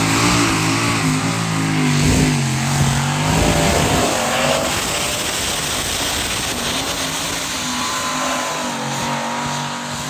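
Modified pulling tractor running flat out as it drags the weight-transfer sled down the track, its engine pitch wavering up and down.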